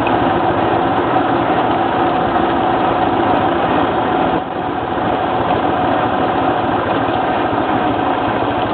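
ATV engine running steadily in fifth gear with no throttle while the dog team pulls the machine along, with tyre noise on the dirt trail. The level dips briefly a little past halfway.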